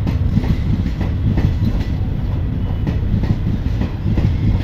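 Blue ICF passenger coaches of an express train rolling past, wheels clattering over the rail joints over a steady low rumble.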